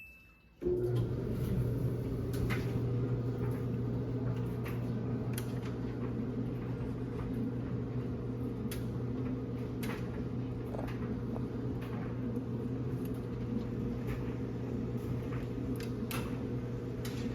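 Samsung clothes dryer switched on under a second in and running steadily with a low hum, a few light clicks over it. It has a new idler pulley and freshly greased drum rollers.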